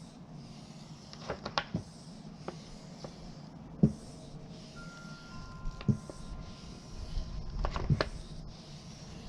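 Plastic squeegee being drawn over a vinyl decal on a car door, a series of soft rubbing strokes with scattered light clicks and taps.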